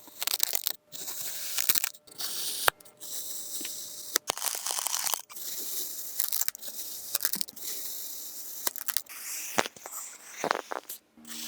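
Crunchy kinetic sand being cut, in a run of gritty scraping crunches, each lasting about a second with short breaks and a few sharp clicks between them.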